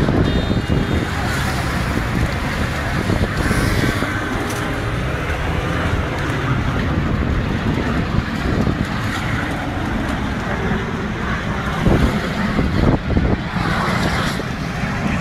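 Steady rushing road noise from a moving car, mixed with wind on the microphone, with a few sharp knocks near the end.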